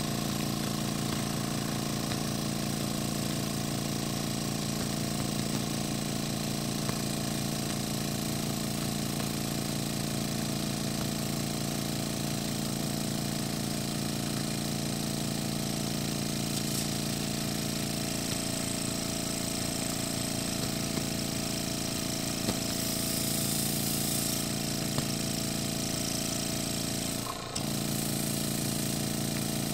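Small electric air pump running steadily, inflating a thin plastic-film balloon, with a brief dip in its sound near the end.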